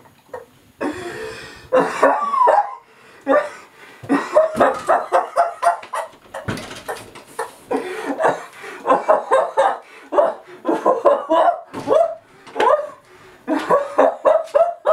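A human voice making choppy, wordless sounds in quick short bursts, several a second, with brief breaks between runs.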